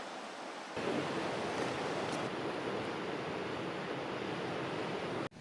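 Steady rush of a flowing river, stepping up in level about a second in and dropping out for an instant near the end.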